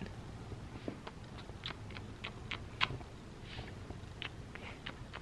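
Soft lip smacks and clicks of a person kissing a kitten, scattered irregularly, with faint breaths between them.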